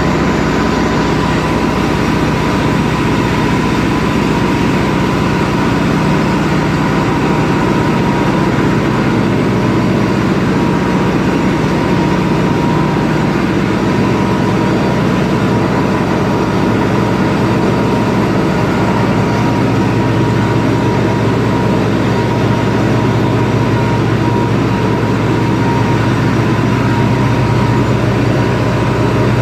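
Loud, steady running of heavy diesel machinery, with a constant high hum over a deep engine drone. Its low note shifts slightly about halfway through.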